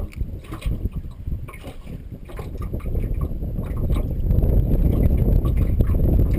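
Wind rumbling on the microphone aboard a fishing boat, with scattered small clicks and knocks; the rumble grows louder about halfway through.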